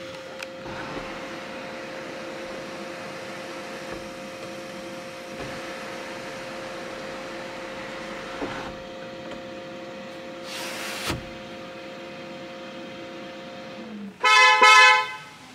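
A steady electric hum inside the car, sagging slightly in pitch as it stops. It is followed near the end by a loud, buzzy beep sounding twice in quick succession. A brief rush of noise comes about ten seconds in.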